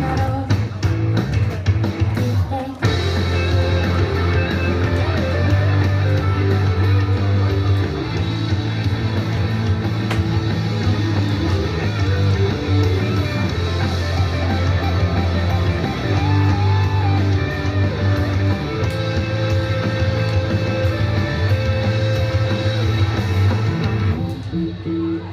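Rock-style pop song with guitar and singing, played loud with a heavy, steady bass line.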